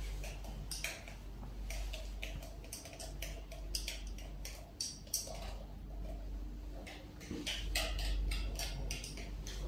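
Irregular light clicks and taps, busiest near the end, over a steady low hum.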